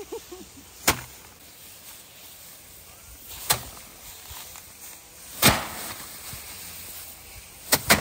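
Rice being threshed by hand: sheaves of cut rice stalks struck against a wooden board in a tub, a sharp strike every couple of seconds, the loudest about halfway through and two quick strikes near the end.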